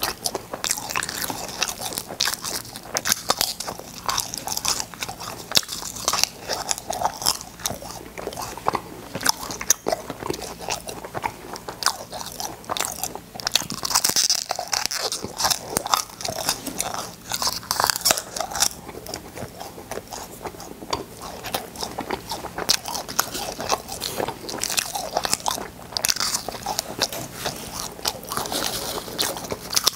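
Close-miked crunching and chewing of cola-flavoured space candy, with many sharp cracks and crunches coming thick and irregular.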